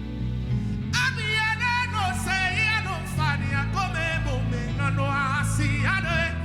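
Gospel music played by a band with a steady bass line and guitar. About a second in, a singer comes in with a wavering, ornamented vocal line without clear words.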